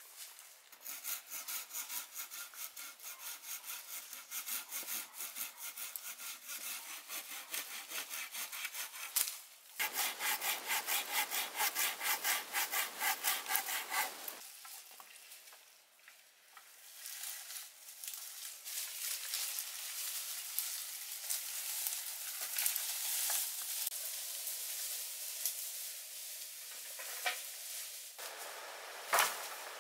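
Wood being cut with a hand saw: steady back-and-forth strokes, about two to three a second, in several bouts with brief pauses, and a few sharp knocks near the end.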